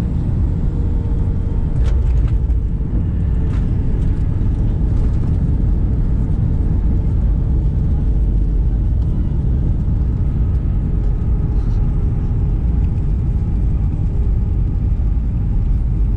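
Inside an airliner cabin during the landing roll: a loud, steady rumble of jet engines and wheels on the runway with the wing spoilers raised. A couple of knocks come in the first few seconds, and a faint thin tone slowly falls in pitch.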